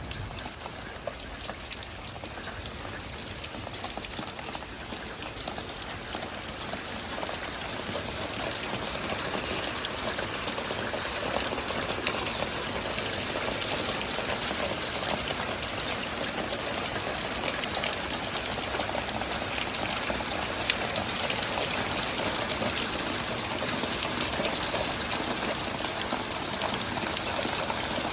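Hailstones pelting down in a storm: a dense clatter of countless small impacts over a steady rushing noise, building in strength over the first ten seconds or so and then holding.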